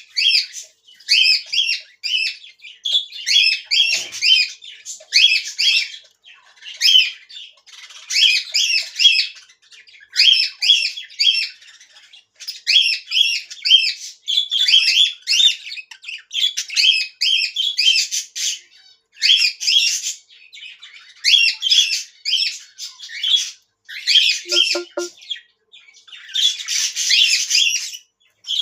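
Budgerigars chattering and squawking in quick, repeated bursts of short high calls, with only brief gaps.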